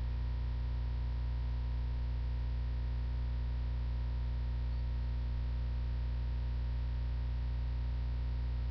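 Steady electrical mains hum with a faint hiss behind it, unchanging throughout.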